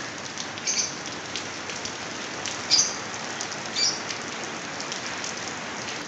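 Heavy rain falling steadily on a wet brick-paved rooftop, a constant hiss of rain on hard ground. Three brief high-pitched sounds stand out over it, about a second in, in the middle and a little later.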